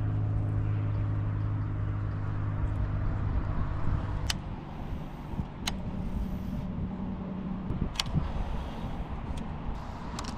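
An engine running with a steady low hum, which stops about four seconds in; a few sharp clicks follow over a fainter outdoor rumble.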